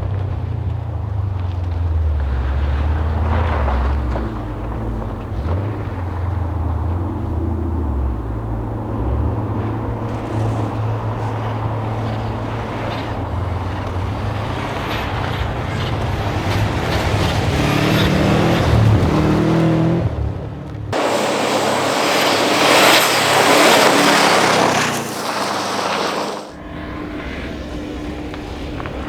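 Rally car engine on a snow stage, revving up and down as it drives through the stage. About 21 seconds in, a loud rushing hiss takes over for about five seconds before the engine returns.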